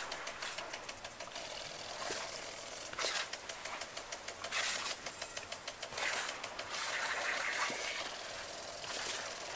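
Revolving lawn sprinkler running: a rapid, steady ticking, with loud hissing bursts of spray every second or two.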